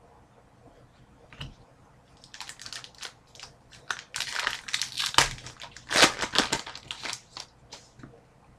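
Plastic trading-card pack wrapper being torn open and crumpled by hand: a soft knock, then a run of crackling crinkles from about two seconds in, loudest in the middle, stopping shortly before the end.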